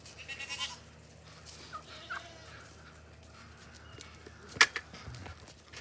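Poultry calling: a short, rapidly pulsing call in the first second and a couple of brief chirps around two seconds in. A single sharp knock comes a little after four and a half seconds and is the loudest sound.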